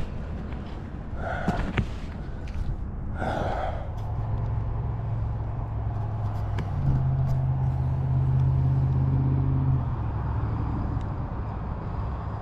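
A low engine drone comes in about four seconds in, steps up in pitch near the middle and settles back down. Before it come two short breathy puffs.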